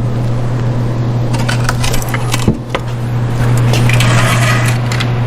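Small clinks and knocks as engine parts are handled on the bench, with a louder knock about two and a half seconds in and a rustle a little later, over a steady low hum.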